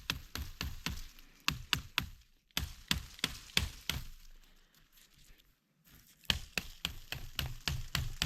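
Small survival hatchet chopping small limbs off downed wood: runs of sharp, quick strikes at about three a second, with a pause of a couple of seconds in the middle.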